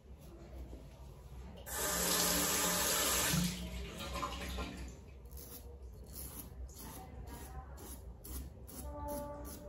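Bathroom tap running into the sink for about two seconds, starting a couple of seconds in. After it come short, repeated scraping strokes of a Merkur 34C double-edge safety razor across lathered stubble.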